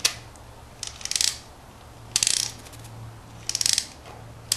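Ratchet clicking of a RAP4 T68 paintball magazine's wind-up spring being wound by hand: short bursts of rapid clicks, one with each twist, about one burst a second, driving the feed piston down.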